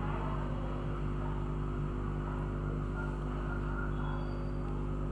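Steady electrical hum with many harmonics under a constant hiss, unchanging throughout.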